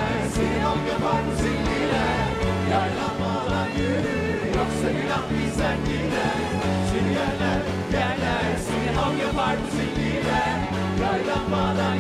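Live Turkish pop band playing, with a woman's lead vocal and backing singers over keyboards and davul bass drums beating a steady rhythm.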